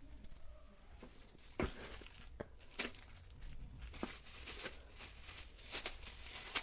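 Packaging of a tripod being torn open and crinkled by hand: a run of sharp rips and crackles that starts about a second in, grows denser toward the end, then cuts off suddenly.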